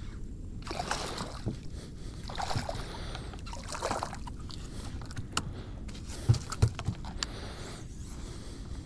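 Small redfish being landed at a boat's side: water splashing and sloshing, with scattered knocks and clicks. A few louder knocks come a little past the middle.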